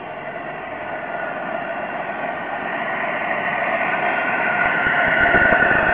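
Supercharged 3.8-litre V6 of a Pontiac Grand Prix GTP idling steadily under an open hood, with a steady high whine on top and growing louder over the few seconds. The engine is a freshly built one with an XPZ cam, ported heads, ported blower and headers, running shortly after its first start.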